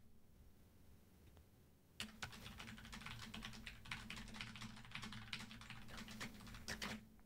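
Near silence for about two seconds, then fast typing on a computer keyboard: a quick run of faint keystrokes.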